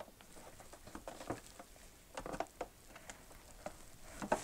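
Faint, scattered clicks and light taps of a screwdriver and hands on a plastic electrical junction box, turning the cover's quarter-turn fasteners and handling the box.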